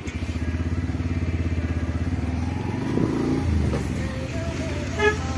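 Motorcycle engine running at low speed with an even, fast pulsing beat. About three seconds in, its pitch briefly rises and falls.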